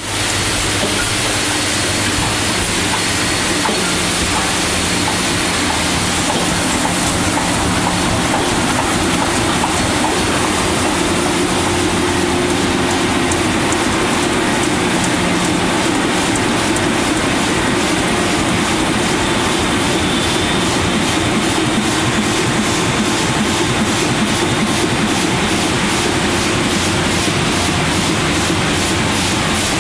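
MAN Roland 706 LV sheet-fed offset press running: a steady mechanical din with a fast, even clicking rhythm that grows plainer about halfway through.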